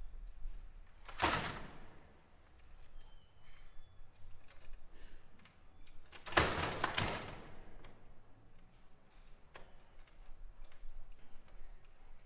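Foosball table being played: scattered clicks and knocks from the rods and ball, with two louder rattling clatters, one about a second in and a longer one about six seconds in.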